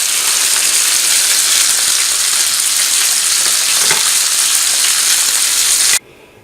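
Whole fish sizzling as it shallow-fries in a few tablespoons of olive oil in a pan, a steady loud hiss that cuts off suddenly about six seconds in.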